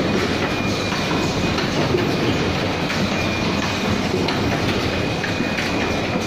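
Automatic cup-mask making machinery running: a steady, dense mechanical clatter with a thin high whine that comes and goes.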